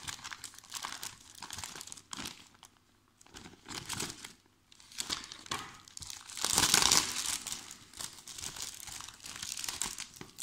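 Thick clear plastic bag crinkling and rustling in irregular bursts as it is handled and pulled open around a magazine, with a couple of short pauses. The loudest rustle comes about six to seven seconds in.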